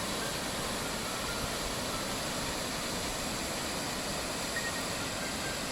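Triberg Waterfall's cascades rushing: a steady, even noise of falling water that does not rise or fall.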